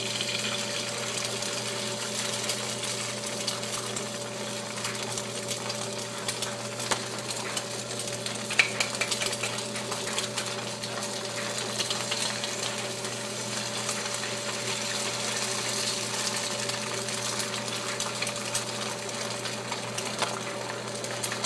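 Eggs frying in a nonstick pan: a steady sizzle with fine crackles, over a steady low hum.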